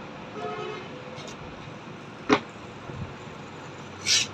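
Parts being handled while an electric churner motor is taken apart: a faint ringing touch of metal early on, one sharp click about two seconds in, and a brief scrape near the end.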